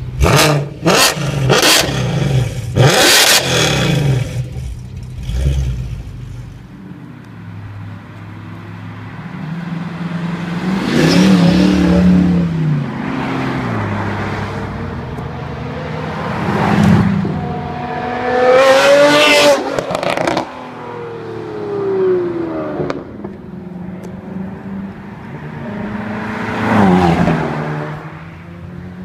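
A performance car's exhaust is revved hard several times in the first few seconds, with sharp crackles and pops. Then about four high-performance cars accelerate past one after another, each engine note rising and falling in pitch as it goes by.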